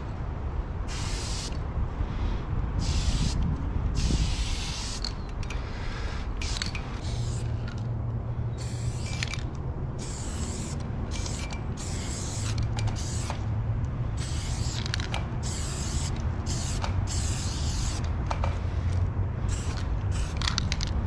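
Aerosol spray paint can hissing in many separate bursts, some under a second and some several seconds long, as paint is sprayed onto a concrete wall, over a steady low rumble.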